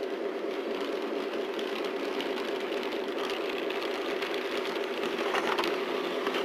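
HO scale model train running on the layout: a steady motor hum with the rattle of wheels rolling over the track, getting louder about five seconds in as the cars pass close by.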